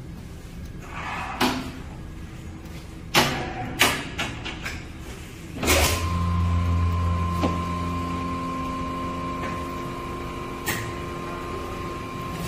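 Manual rotary skin-packaging machine: a few knocks and clacks as trays are set into its mould, then about six seconds in a heavy thump and the machine starts a steady low hum with a thin high whine, which slowly eases.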